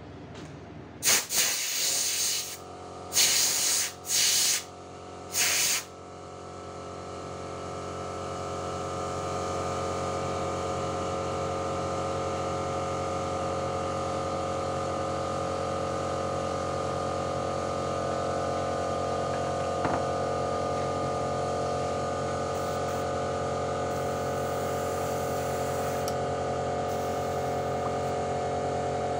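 Airbrush spraying paint in four short hissing bursts. From about six seconds in, a steady motor hum, typical of the airbrush's air compressor, swells and then holds.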